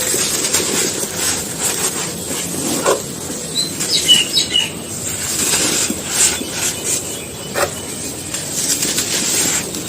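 Dry, grainy, sandy material crumbling and crunching in a tub, with a continuous gritty crackle and a few sharper cracks. A few brief high chirps come near the middle.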